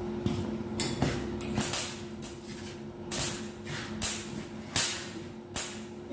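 Arc welder stitch-welding a steel frame: short bursts of arc crackle and hiss, each a fraction of a second long and repeated about every 0.7 s, over a steady low hum.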